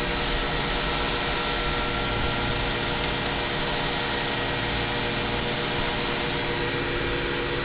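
Light aircraft engine idling, a steady drone with an even pitched hum, heard inside the cockpit.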